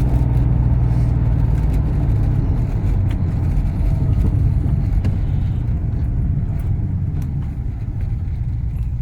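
Ford AU Falcon XR8's V8 engine running on the road, a steady low drone with tyre and road noise, easing off a little in the last few seconds.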